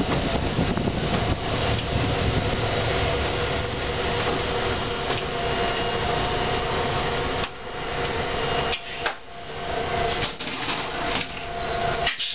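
Former Meitetsu 770-type tram running on track, heard from inside the cab: steady rumble of wheels on rail with a thin steady whine over it. About seven and a half seconds in the running noise drops and turns uneven, with scattered clicks and knocks as the car slows.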